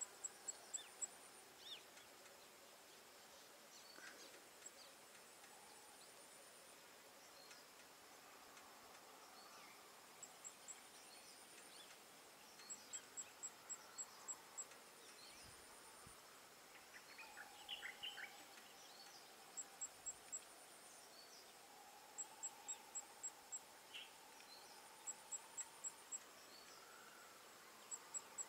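Quiet outdoor ambience: insects chirping in short trains of sharp, high, rapid pulses that recur every couple of seconds over a faint steady high buzz, with a few faint bird chirps.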